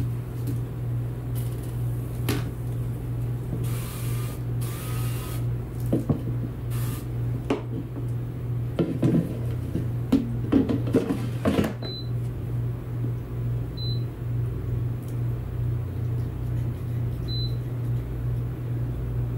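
Tongs and the air fryer basket clattering and knocking as pork chops are loaded, with two short hisses about four seconds in. Then the Sakuchi air fryer's touch panel beeps three times, a few seconds apart, as it is set, over a steady low hum.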